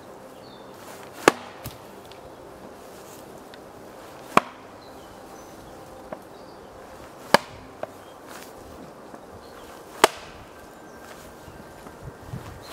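Small Fiskars X10-S axe chopping into a log stump: four sharp strikes of the blade biting into the wood, about three seconds apart, a couple of them followed by a lighter knock.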